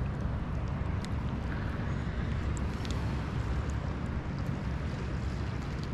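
Wind rumbling on the microphone: a steady low noise, with a few faint clicks scattered through it.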